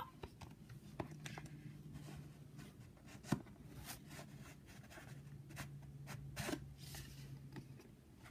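Faint rubbing and light handling of a cardboard card-game box with a magnetic lid as a card deck is lifted out, with a few soft clicks and knocks.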